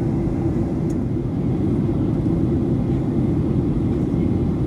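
Steady cabin noise of a Boeing 737-900ER in flight: its CFM56-7B engines and the airflow over the fuselage make an even, deep rush heard from a window seat.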